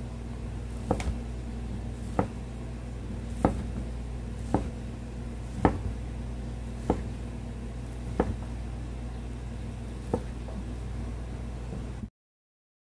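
Kitchen knife slicing through a stack of fish cake sheets, each stroke ending in a knock on a plastic cutting board, about one stroke a second, over a steady low hum. The sound cuts off suddenly near the end.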